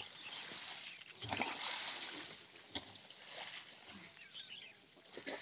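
Fermented jaggery wash splashing and gushing out of a cut-open plastic drum onto the ground as the drum is tipped over. A few dull knocks come from the drum being handled.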